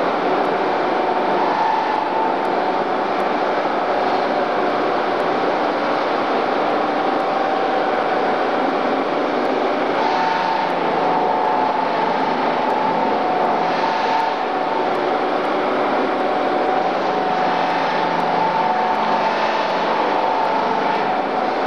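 Robotic polishing wheel spinning against a metal seat frame: a steady whine over a rushing, grinding noise, swelling a little now and then as the wheel works across the part.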